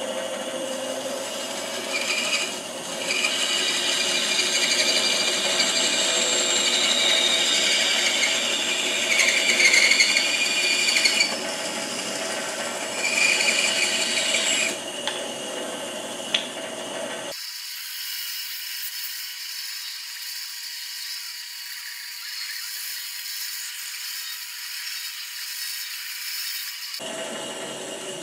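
Bandsaw running and cutting through a block of redwood, growing louder in stretches as the blade bites into the wood. About two-thirds of the way through, the sound thins abruptly to a high hiss with no low end, then the fuller sound returns shortly before the end.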